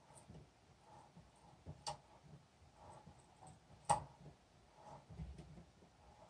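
Hand tap cutting an M10 thread inside a steel spark plug shell, turned by a T-handle tap wrench: faint metal-on-metal scraping with two sharp clicks about two seconds apart, the second louder.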